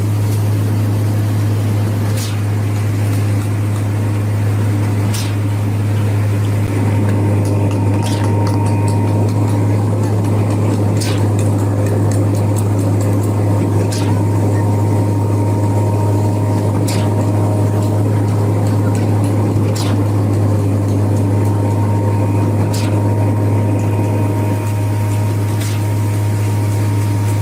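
Borewell drilling rig machinery running steadily, with a strong low hum and faint clicks every few seconds.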